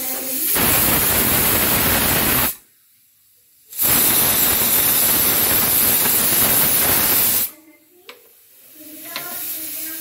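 Pressure cooker whistling: two loud rushes of escaping steam from the weight valve, the first about two seconds long, then a second after a one-second break that lasts about three and a half seconds, marking that the cooker has reached full pressure.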